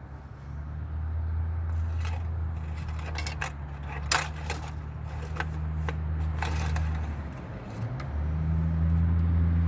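Engine oil dipstick sliding in and out of its metal tube, with scattered metallic scrapes and clicks, while the oil level is checked after a refill. Underneath is a steady low hum that dips briefly near the end.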